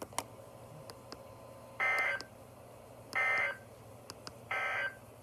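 Emergency Alert System end-of-message signal: three short bursts of SAME data tones, each a buzzy warble under half a second long and about 1.3 s apart, marking the end of the alert. Faint clicks and a low steady hum lie underneath.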